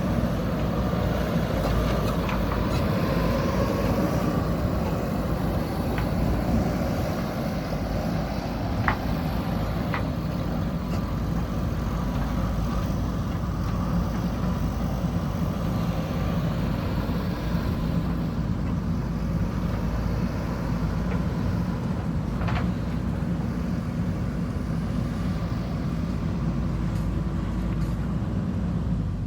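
JCB backhoe loader's diesel engine running steadily as the machine works, with a few short knocks.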